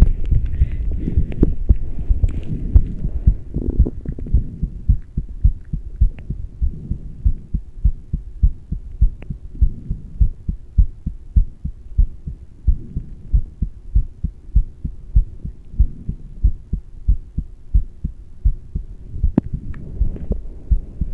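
Human heartbeat: a steady, even run of low thuds, recorded while the person rebreathes the same air from a plastic bag through a straw. Some rustling noise sits over the beat in the first few seconds.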